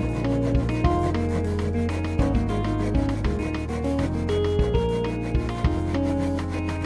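Short Japanese azebiki hand saw rasping into a wooden board from its face, in repeated back-and-forth strokes. Background music with a melody and steady bass plays along.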